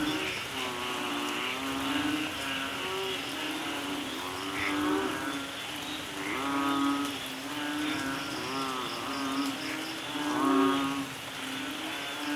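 Rainforest ambience: a dense chorus of frogs calling in repeated warbling croaks over a steady hiss of rain, with an insect trilling in fast even pulses for a couple of seconds near the end.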